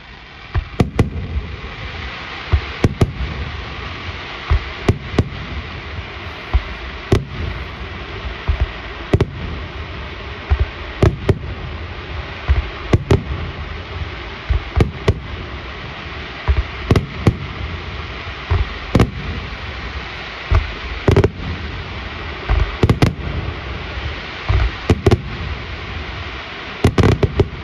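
Aerial firework shells bursting in a display, with a sharp bang roughly every two seconds, often two in quick succession and a rapid cluster near the end, over a steady hiss.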